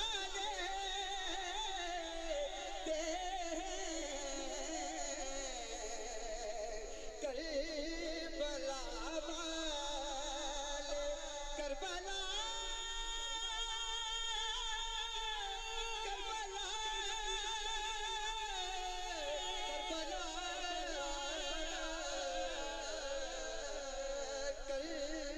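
A man's voice singing a naat in long, wavering melismatic phrases, with one long held note about halfway through.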